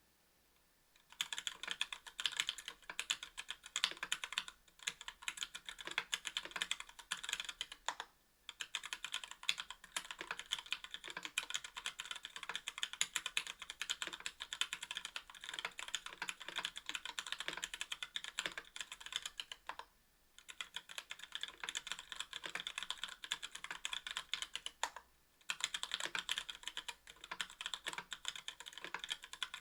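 Fast continuous typing on a mechanical keyboard with Gateron Merlot linear switches in an aluminium-plated KBDfans Tofu 60% case with GMK keycaps: a dense run of key clacks starting about a second in, broken by three short pauses.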